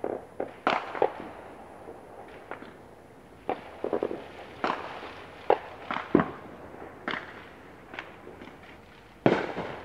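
Neighbourhood fireworks and firecrackers going off all around: irregular bangs and pops at varying distances, with a quick cluster of cracks around four seconds in. The loudest bang comes near the end, with an echo trailing after it.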